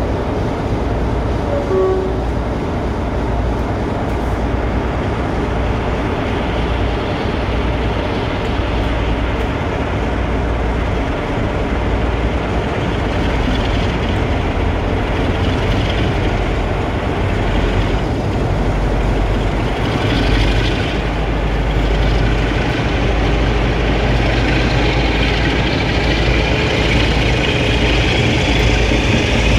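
Two Class 47 diesel locomotives' Sulzer V12 engines running loud at a steady idle. In the last several seconds the engines' note rises into a climbing whine as power is applied and the locomotives begin to pull away.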